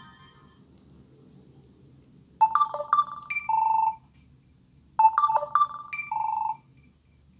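Samsung Solstice SGH-A887 cell phone playing an electronic ringtone: a previous tone fades out at the start, then a short phrase of a few quick notes ending on a held tone sounds twice, about two and a half seconds apart.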